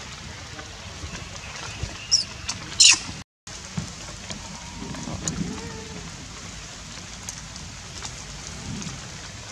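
Steady patter of light rain, with a baby macaque giving two short high-pitched squeals about two and three seconds in.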